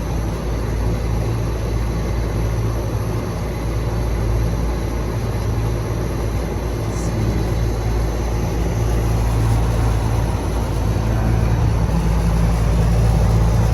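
Steady low hum of a rooftop HVAC unit's electric blower motor running with nothing to drive: the drive belt has come off the motor pulley, so the blower gives no airflow.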